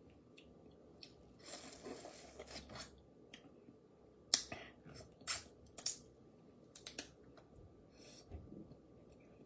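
Boiled crawfish shells being cracked and pulled apart by hand, with chewing. There is a rustling about a second and a half in, then several sharp cracks over the next few seconds.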